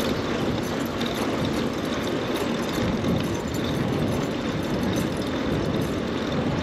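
Steady rush-hour city street traffic, a continuous wash of car and engine noise, heard from a moving bicycle.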